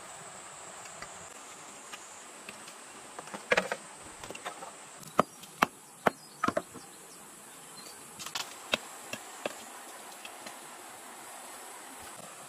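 Sharp wooden knocks and taps of bamboo poles and logs being handled, about a dozen in two loose groups through the middle, over a steady high insect drone.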